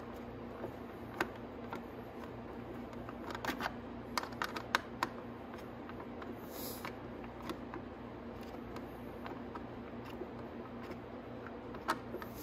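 Light plastic clicks and taps as a Venom X20 motorcycle's plastic side fairing is worked into place by hand, with a quick cluster of them a few seconds in. A faint steady hum runs underneath.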